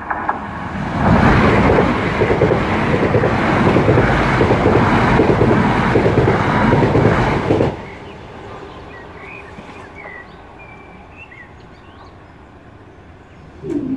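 Two coupled Class 379 electric multiple units passing over a level crossing at speed. It is a loud, steady rush of wheel and air noise that builds about a second in and stops abruptly about eight seconds in.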